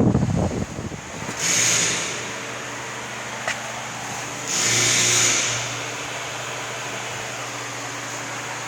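TIG welding arc struck twice, each a short hissing burst of about a second with a low hum, over the steady hum of shop ventilation fans. A brief low rumble comes at the very start.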